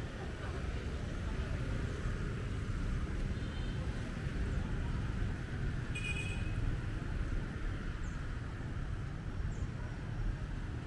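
Busy city street ambience: a steady low rumble of passing traffic, with a short high chirp about six seconds in.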